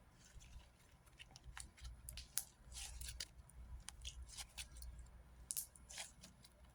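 Slime being stretched and squeezed by hand, giving faint, irregular sticky clicks and small bubble pops.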